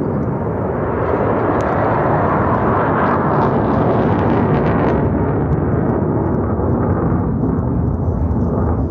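Jet aircraft roaring overhead at low altitude. The roar swells to its loudest about three to four seconds in, then eases off.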